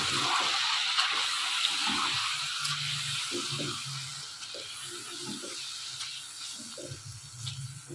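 Chicken pieces frying in hot oil in a wok, sizzling as yogurt is stirred in with a spatula. The sizzle is loudest for the first few seconds, then dies down as the yogurt mixes in.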